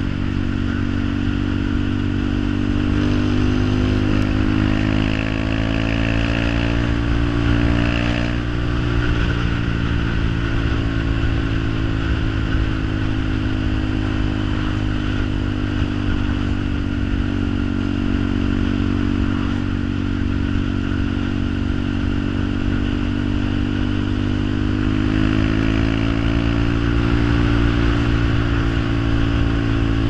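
An engine running steadily with a low, even drone. Its pitch rises a little a few seconds in, falls back, and rises again near the end.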